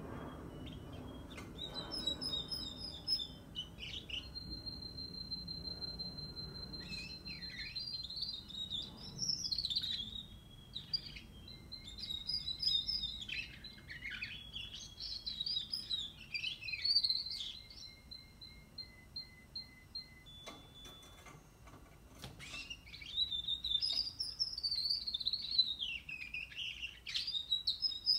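A young canary, about six weeks old, singing a rambling juvenile practice song: runs of high trills and chirps mixed with long, steady whistled notes. There is a short pause a little past the middle.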